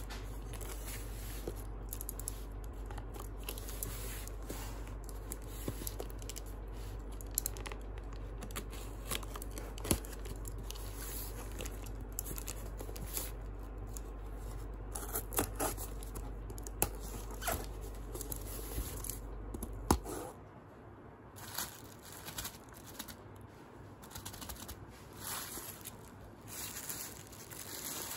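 Hands unboxing a cardboard parcel: packing tape tearing and cardboard rustling and scraping in irregular bursts, then plastic bubble wrap crinkling near the end. A low steady hum underneath stops about two-thirds of the way through.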